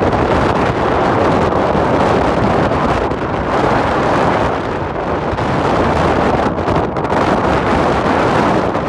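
Strong wind buffeting the microphone: a loud, steady rushing rumble with no tones in it.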